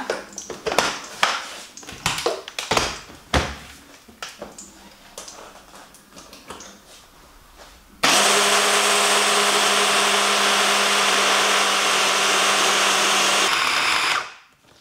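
Moulinex hand blender with its chopper bowl attachment running steadily for about six seconds, grinding minced beef with ice into bakso meatball paste; it starts suddenly and cuts off shortly before the end. Before it starts come scattered clicks and knocks of the bowl and blender being handled.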